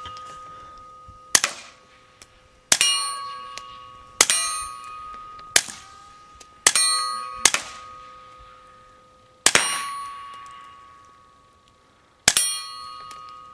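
Smith & Wesson M&P 22 pistol with a Liberty Cans Lucky Bee suppressor firing about eight single shots at an irregular pace, each a sharp muffled crack. Each crack is followed by a ringing metallic tone that dies away over a second or more.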